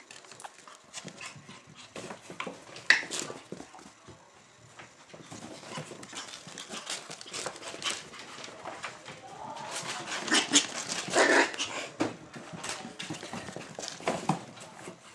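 Chinese crested puppies scuffling and scratching at play, with short squeaks and whines; the loudest whine comes a little past the middle.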